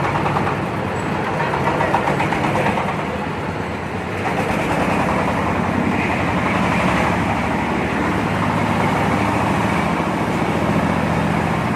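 Engine-driven corn sheller running steadily under a continuous engine drone, with the sound of the shelling drum spread over it. The drone dips briefly about four seconds in, then picks back up.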